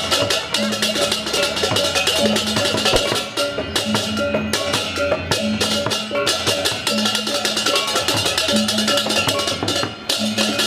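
Balinese gamelan music accompanying a barong: fast, dense metallic strikes of bronze gong-chimes and cymbals over drums, with a low gong-like tone sounding in short repeated stretches.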